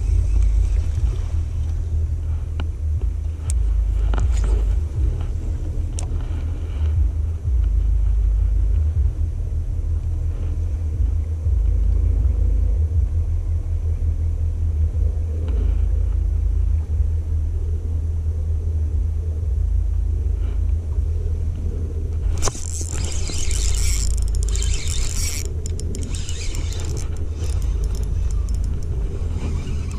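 Steady low rumble of wind buffeting the camera's microphone. About three-quarters of the way in, a hissing, rattling whir joins it: a spinning reel being cranked as a hooked bass is fought.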